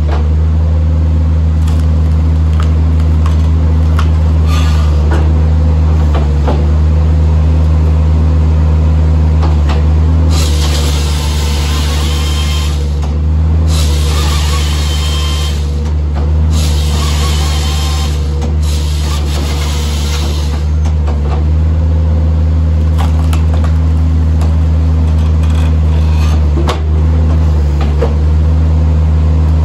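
Skid steer's diesel engine running steadily under load, driving the hydraulics of a Halverson HWP 120 firewood processor while a log is pushed through the splitting wedge. A loud hiss comes in two stretches of a few seconds each, about a third and about two thirds of the way through.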